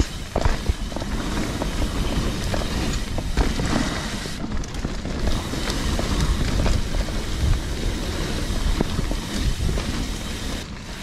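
Mountain bike riding down a dirt singletrack trail: a steady rumble of wind on the microphone, with scattered knocks and rattles from the tyres, chain and frame over the bumps.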